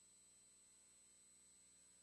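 Near silence: a faint steady hiss with a thin, constant high-pitched tone.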